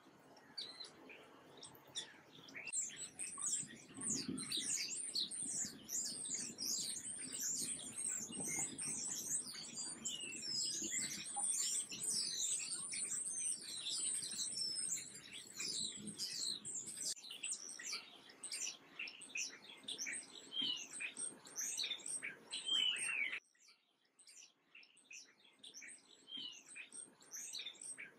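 A chorus of small birds chirping and twittering, a dense stream of quick high chirps and short falling calls. It cuts off suddenly about four-fifths of the way through, leaving only scattered chirps.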